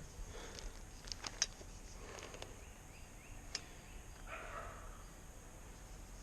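Faint handling sounds from the pages of a pressure washer's manual being handled and turned: a few light clicks and soft rustles.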